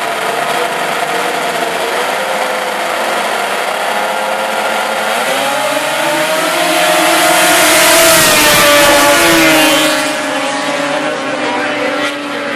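A field of vintage two-stroke racing snowmobiles running together on the start line, then revving up and taking off about five seconds in. Several engines rise in pitch, are loudest around eight seconds in, then fall away as the pack pulls off.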